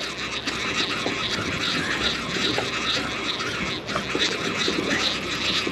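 Steady wind and sea noise on an open offshore boat, with a faint, evenly repeating ticking through it.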